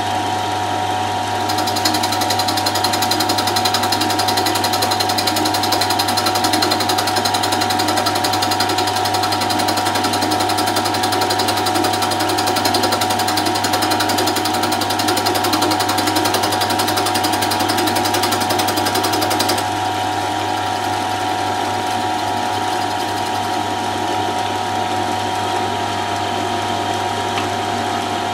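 Milling machine running with a shop-made single-point cutter, a 6 mm high-speed-steel bit, milling a radius into a block of wood. The steady hum of the machine runs throughout; a hissing cutting noise starts about a second and a half in and stops abruptly after about twenty seconds, leaving only the hum.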